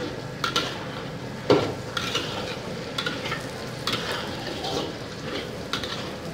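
Metal spatula scraping and knocking against a wok as sliced fish cake and fish balls are stir-fried in hot oil, over a steady sizzle. The strokes come irregularly, about ten of them, the loudest about a second and a half in.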